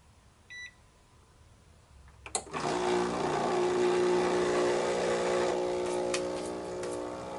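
A digital coffee scale beeps once. A little after two seconds there is a click, and the Breville Barista Express's vibratory pump starts and hums steadily as an espresso shot is pulled.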